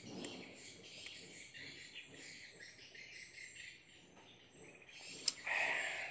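Crickets and birds chirping steadily in the background while a man drinks from a glass of water. Near the end there is a sharp click as the glass is set on the table, then a short breathy exhale.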